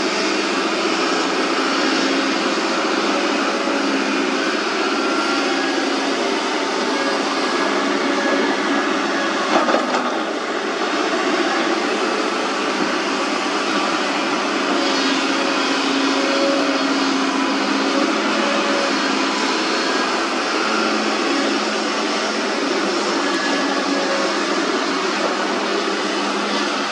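Kobelco SK200 hydraulic excavator's diesel engine working steadily under load while it digs wet mud, with a single sharp knock about ten seconds in.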